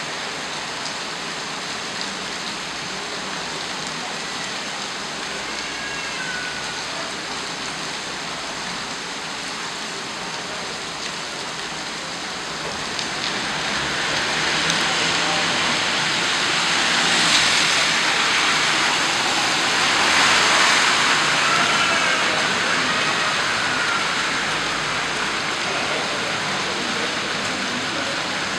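Heavy rain mixed with hail beating down on a paved street, a steady hiss that grows heavier about halfway through, peaks, then eases a little.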